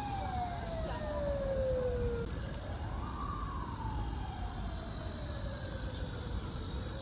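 A siren wailing, its pitch rising quickly and falling slowly in repeated cycles about four seconds apart, over a steady low rumble.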